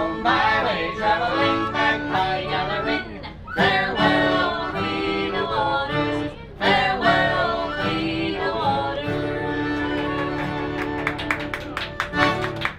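A small band performing a pirate song live: men singing together over an accordion and a strummed acoustic guitar, the singing coming in lines with short breaks between them.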